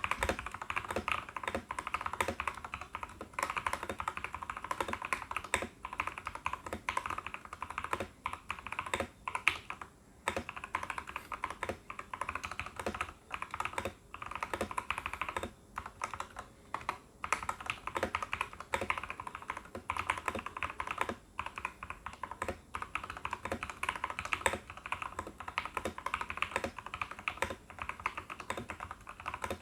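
Typing on a foam-modded TKL mechanical keyboard with lubed Outemu Orange switches and PBT keycaps: a fast, steady stream of key clacks, broken by a few short pauses.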